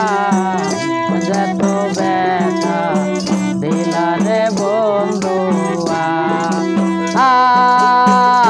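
Instrumental interlude of a Baul folk song: harmonium and bamboo flute playing the melody over a hand frame drum with jingles keeping a steady beat. The melody swells louder on a held phrase about seven seconds in.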